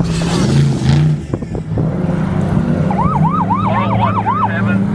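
Motor vehicle engine running, its pitch swelling up and down. About three seconds in, a siren gives a brief rapid yelp, sweeping up and down several times in about a second.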